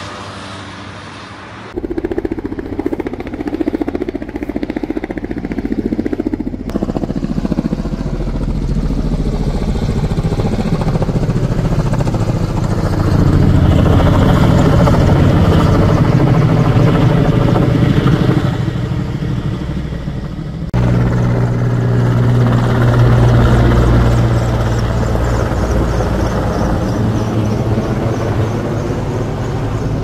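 Firefighting helicopter running loud as it flies low overhead, its rotor and engine growing louder toward the middle and easing near the end. The sound breaks off and jumps abruptly three times where clips are joined.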